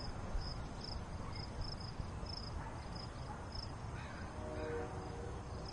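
Cricket chirping in the background, short regular chirps about two a second over steady low background noise.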